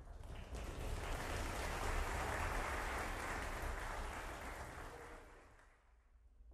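Audience applause, a dense even clapping that swells in, holds, and fades away near the end.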